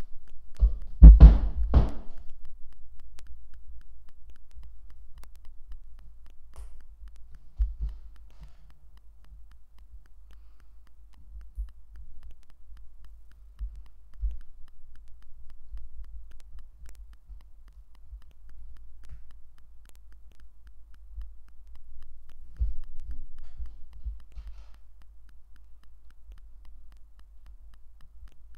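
Lego pieces being handled and pressed together on a tabletop: scattered dull knocks and thumps with a few faint clicks, and a brief louder noise about a second in.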